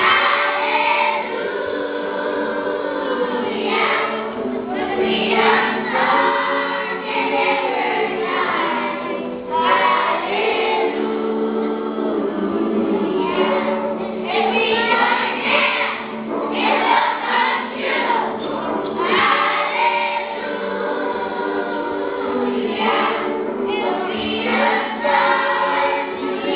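A choir singing a song, many voices together.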